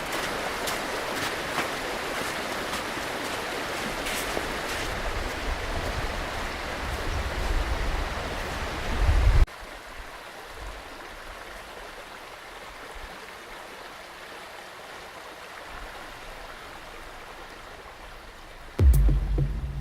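Meltwater stream rushing, with a low rumble building up under it. About halfway through it cuts abruptly to a quieter, steady water hiss, and near the end a deep thump comes in.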